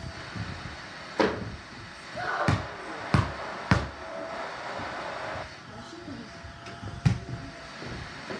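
A small toy basketball being played with at a mini hoop: a string of sharp thuds as it bounces and strikes, three in quick succession between about two and a half and four seconds in, and another sharp hit about seven seconds in.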